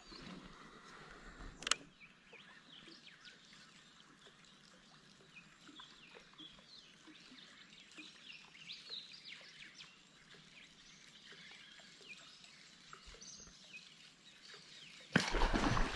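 Birds chirping faintly in the background, many short high calls one after another. A single sharp click comes about two seconds in, and a sudden loud burst of noise near the end.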